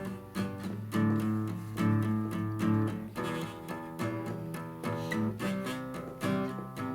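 Guitar strumming chords in a steady rhythm: an instrumental passage of a worship song, between sung lines.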